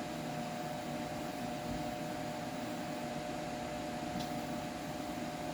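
Steady machine hum with a faint fixed tone over a soft even hiss, and a faint click about four seconds in.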